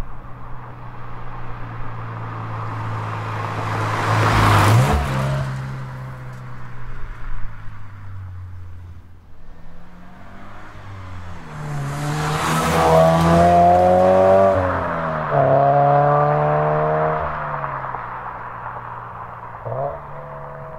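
A Toyota 86/Subaru BRZ's FA20 flat-four running through an HKS Super Exhaust System (4-2-1 R-SPEC manifold with Hi-Power Spec-L muffler) drives past twice. The first pass comes about four seconds in, at steady throttle, with the pitch dropping as it goes by. The second, louder pass is under acceleration: the exhaust note climbs, dips briefly at a gear change and climbs again before dropping away, and a short blip of revs comes near the end.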